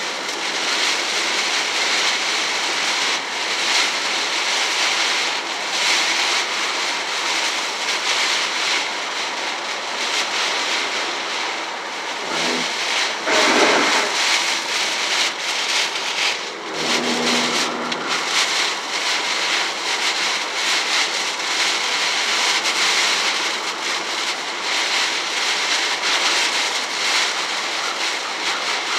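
Heavy rain and spray hissing on a moving car's roof and windshield, with wet-road tyre noise, heard inside the cabin; a louder surge comes about halfway through.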